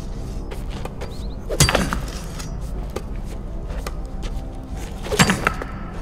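A pickaxe striking rock twice, about a second and a half in and again near the end, each hit a sharp metallic clank with a short ring, over a low steady drone and soft music.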